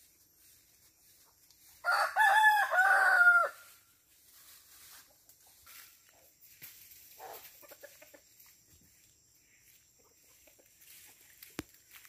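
A rooster crows once, about two seconds in, lasting about a second and a half in two drawn-out parts. The rest is faint scattered rustling.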